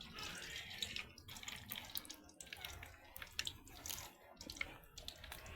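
Water running and splashing, as in washing at a sink or basin, with scattered small clicks and knocks.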